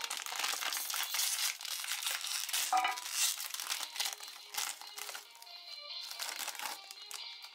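Foil blind bag crinkling and crackling in the hands as it is opened and its contents pulled out, over background music.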